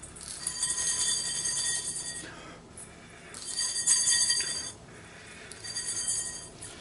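Hulled rice being shaken around in a stainless steel bowl to winnow off the husks, the bowl ringing with high metallic tones. It comes in three bouts of a second or two each.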